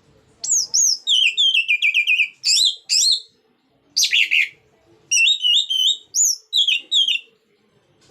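Orange-headed thrush (anis merah) singing in full song: fast runs of repeated slurred whistled notes in several phrases, with short pauses about three and a half and four and a half seconds in, stopping just after seven seconds.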